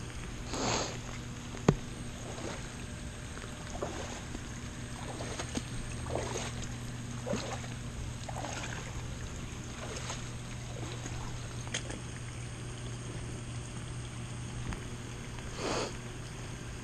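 Feet wading through shallow floodwater, with a watery slosh every second or two over a steady low hum.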